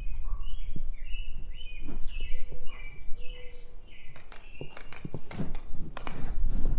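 A bird chirping in short, repeated notes for the first few seconds, over a low rumble. In the second half comes a run of sharp clicks and knocks.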